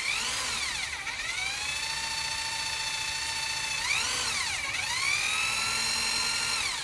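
Electric drill boring into hardwood: the motor runs at a high whine, bogs down twice as the bit loads up, sagging in pitch, then picks back up to speed.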